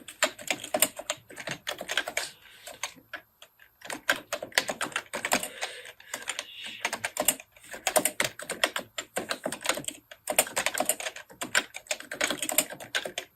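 Fast typing on a computer keyboard: rapid key clicks in runs broken by brief pauses.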